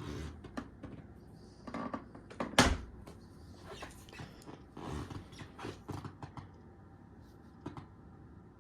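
Scattered knocks and clicks from a Hoover Clean & Light upright vacuum cleaner being handled while switched off, with one louder thump about two and a half seconds in.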